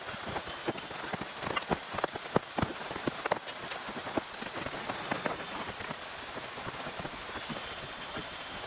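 Steady rain falling, with many sharp separate drop hits over it, thickest and loudest in the first half and settling into an even patter later.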